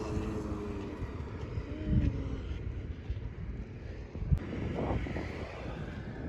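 Wind buffeting the microphone over a low outdoor rumble, with a single sharp knock about four seconds in.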